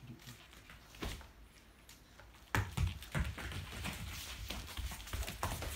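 Boston terrier puppy scampering and playing on foam floor mats: irregular taps and low thumps, one about a second in and then many in quick succession from about halfway.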